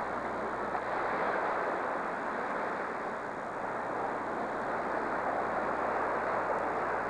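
Steady rushing of wind and small waves breaking on a rocky shoreline, with a faint low hum underneath.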